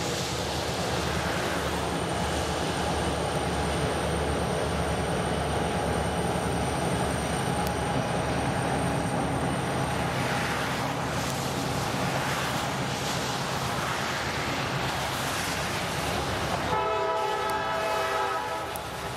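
EMD GP-38 and GP-35 diesel locomotives working with a steady low drone, with wheel noise from the passenger coaches rolling past on the rails. Near the end the locomotive horn sounds for about two seconds.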